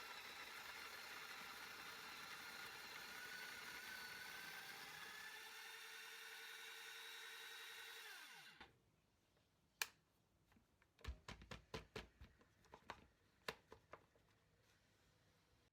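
Electric coffee grinder running, its motor pitch rising slightly, then switched off about eight and a half seconds in and spinning down. A series of light clicks and knocks follows.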